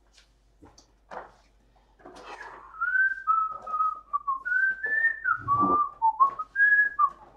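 A person whistling a short tune: a single clear line stepping up and down between held notes for about four seconds, after a few light clicks.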